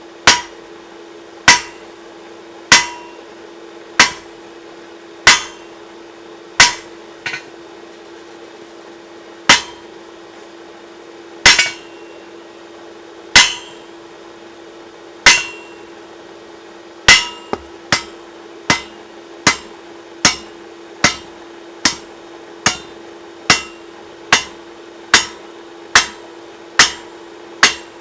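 Blacksmith's hand hammer striking hot high-carbon steel stock, single ringing blows about every second and a quarter with a short pause about a third of the way in, then a quicker run of blows a little under a second apart in the second half. A steady hum runs underneath.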